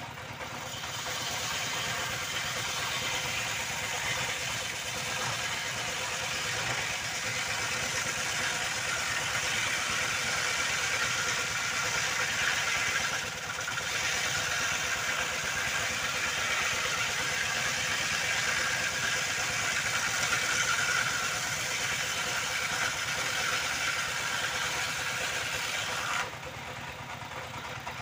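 Circular saw blade cutting through wood in one long steady pass, with a brief dip about halfway. It stops a couple of seconds before the end, leaving a machine running steadily underneath.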